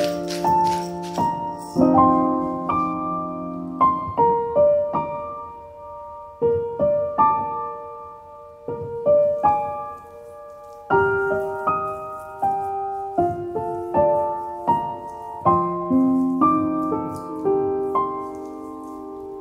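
Background solo piano music, a slow melody of separate notes. In the first second or so, a pepper mill grinds with a dry rattling crunch.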